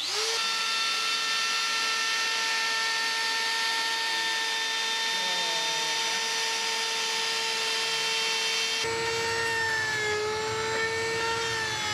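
CNC router spindle whining steadily as it cuts a circle into a wood board, starting with a quick rising sweep. About nine seconds in it gives way to a table-mounted router running as a round wooden blank is fed against the bit, its pitch sagging briefly under load.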